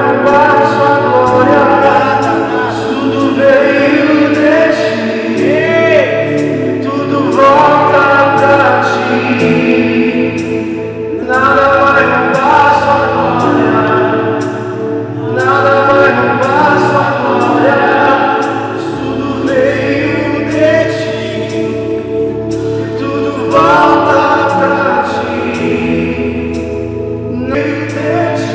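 Live gospel worship music: voices singing long phrases that recur every few seconds over steady held keyboard chords.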